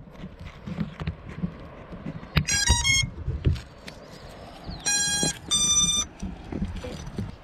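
FPV quadcopter's motors sounding their ESC startup tones: a quick run of short electronic beeps of changing pitch, then about two seconds later a long lower beep followed by a higher one, the signal that the quad is powered up and ready. Low handling bumps and wind hiss sit underneath.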